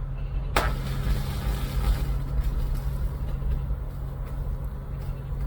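Microwave oven transformer humming loudly and steadily under load, with one sharp crack about half a second in and a hiss that dies away over the next second or so: the LED PCB board on its output blowing.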